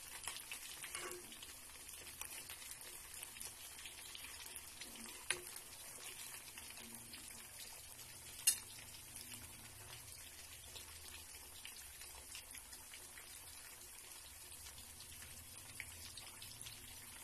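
Sweet potato wedges deep-frying in hot cooking oil: a steady, faint crackling sizzle of fine pops, with two louder clicks about five and eight and a half seconds in.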